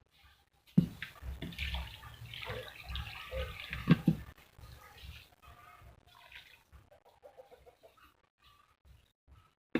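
Water poured onto the soil of newly planted seedlings, splashing and trickling, with a couple of knocks from the container. The pouring dies away to near quiet in the second half.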